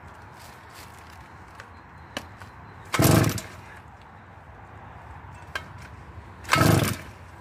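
Two pulls on a petrol chainsaw's recoil starter, each a short rasp of the cord and the engine turning over, about three and a half seconds apart. The engine does not catch.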